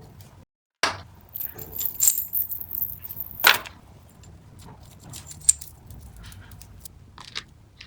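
Small gift items and their plastic packaging handled on a table: scattered light clicks, clinks and rustles, with one sharper clack about three and a half seconds in. The sound cuts out completely for a moment about half a second in.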